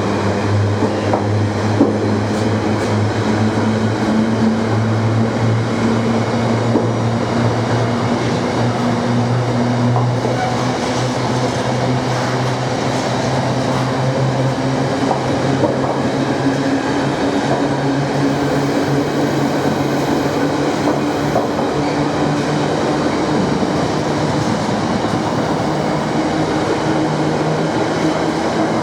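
Train running, a steady low drone whose pitch rises slowly through the second half.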